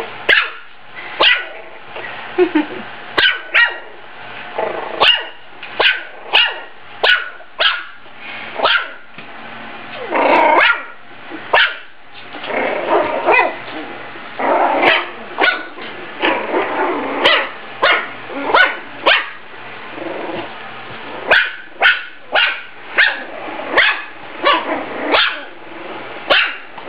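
Small puppy barking over and over in short yaps, about one or two a second, with longer growls mixed in through the middle.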